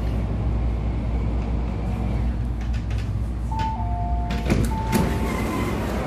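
MTR A-Train carriage with a steady low rumble. About three and a half seconds in, an electronic chime plays three notes, high, lower, high again. Around four and a half seconds in, the passenger doors unlock and slide open with a couple of clunks.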